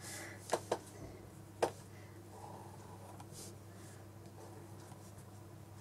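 Fineliner pen working on sketchbook paper: three light taps in the first two seconds, then faint quiet pen strokes, over a low steady hum.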